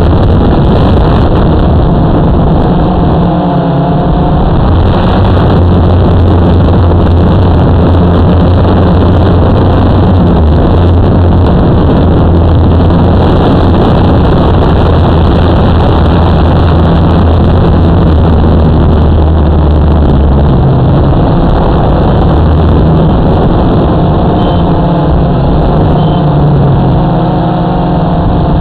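Motor and propeller of a camera-carrying model aircraft in flight, heard loud and close through the onboard camera's microphone: a steady drone mixed with rushing wind. The pitch shifts with throttle changes about 3 seconds in, around 20 seconds, and again near the end.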